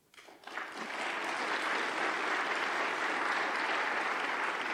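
Audience applauding, starting about half a second in and then holding steady.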